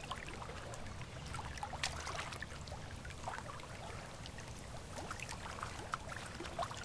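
Small waves lapping and washing onto a pebble beach, a steady low wash with many small splashes and crackles.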